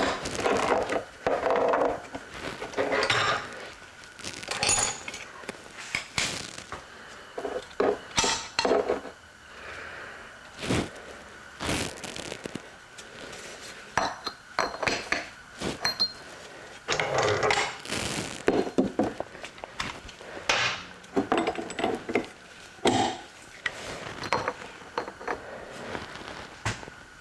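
Metal engine parts and hand tools clinking and clattering in irregular bursts, with scattered sharp knocks, as a Harley-Davidson Ironhead engine is taken apart.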